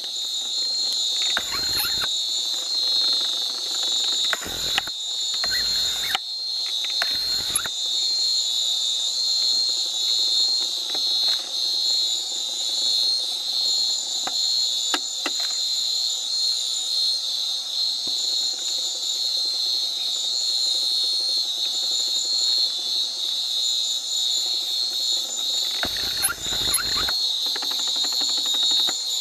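Night-time rainforest insect chorus: a steady, shrill drone at one pitch, with a second, higher pulsing call that comes and goes. A few dull low bumps come in the first eight seconds and again near the end.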